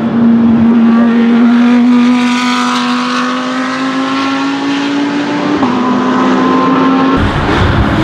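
Audi R8 LMS race car's 5.2-litre V10 at high revs under acceleration, its pitch climbing steadily, with a sudden small drop in pitch about five and a half seconds in like a quick upshift. Just before the end the sound changes abruptly to a deeper, rumbling engine note.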